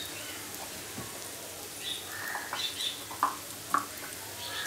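Roasted chana dal, peanuts, pumpkin seeds and cashews frying in hot coconut oil and ghee in a steel pan: a steady sizzle, with a few sharp clicks.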